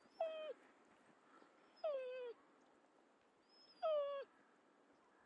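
Dog giving three short, high yelps about two seconds apart, each sliding down in pitch.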